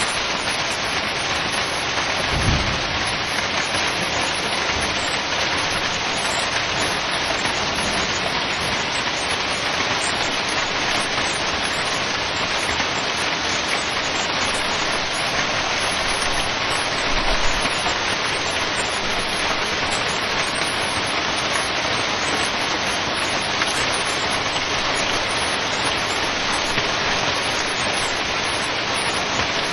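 Heavy hailstorm: a dense, steady hiss of hailstones striking surfaces, with two brief low thumps, about two and a half seconds in and again around seventeen seconds.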